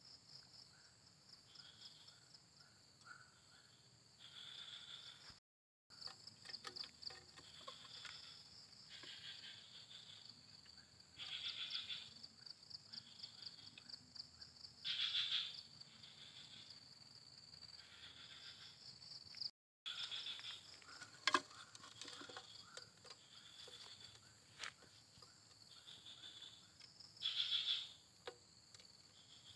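Faint outdoor insect chorus, crickets among it: a steady, high, pulsing trill with short louder calls breaking in every few seconds. A few sharp clicks, the loudest about two-thirds of the way through.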